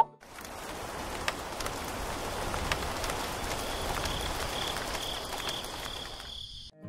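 Rain falling steadily: an even hiss of rain with scattered drop ticks, which cuts off suddenly shortly before the end. A faint high pulsing tone runs under it for a while in the middle.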